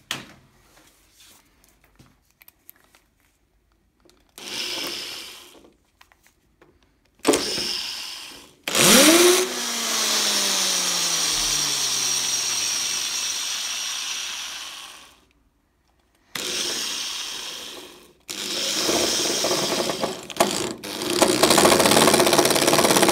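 Power drill driving screws into a door hinge, running in several bursts with short pauses. The longest run lasts about six seconds, and its whine falls in pitch near the start.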